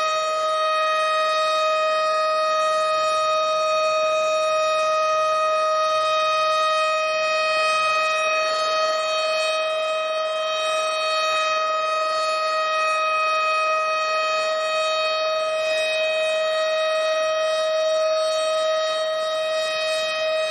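Tornado warning siren holding one steady pitch, with no rise or fall.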